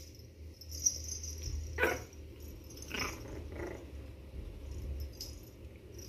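Shih Tzu puppy giving three short barks, about two seconds in, at three seconds and just after, the last one weaker. A sharp click comes about a second in, over a low steady hum.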